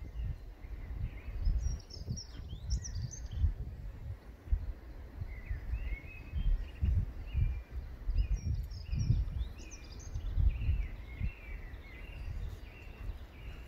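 Birds singing outdoors over an irregular low rumble. High chirps come a couple of seconds in and again past the middle, and a short note is repeated about twice a second through the middle.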